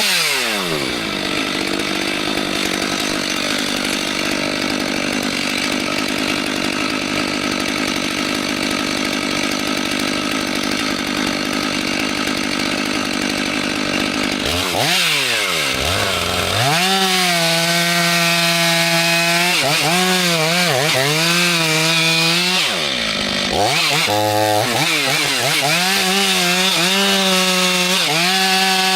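Two-stroke chainsaw running and cutting through wood. It starts as a steady, even run; from about halfway the engine note keeps dropping and recovering as the chain bogs into the wood. There is a brief break just after two-thirds of the way through.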